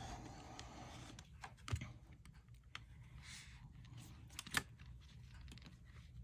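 Light clicks and taps of hands handling a stroller's rear wheel hub and axle, feeling for the hole for the locking pin, with two sharper clicks, one about two seconds in and one about four and a half seconds in.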